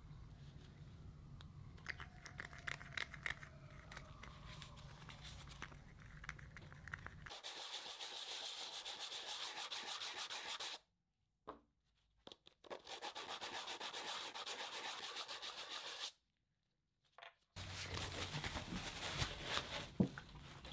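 Hand-sanding with a sheet of sandpaper on a foam SUP board around the plug holes: steady scratchy rubbing in two stretches of about three seconds each, each cut off abruptly. Before it come small clicks and taps of a plastic syringe and mixing cup as epoxy is measured.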